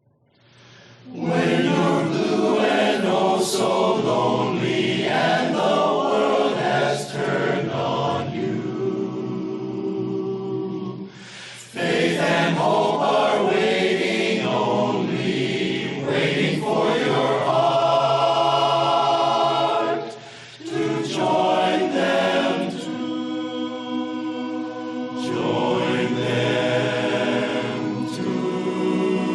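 Barbershop chorus singing a cappella in close harmony, holding long sustained chords, with two brief breaks about 11 and 20 seconds in.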